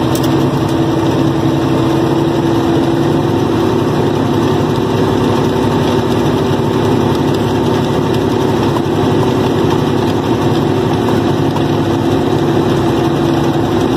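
Heavy truck's diesel engine running steadily at a constant pitch under load on a dirt grade, heard from inside the cab.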